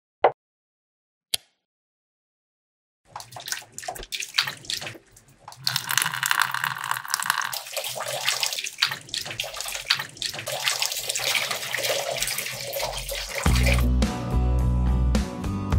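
Two light clicks, then from about three seconds in, water pouring and splashing as it spills from a small raised glass tank into a miniature pool below. Guitar music comes in near the end.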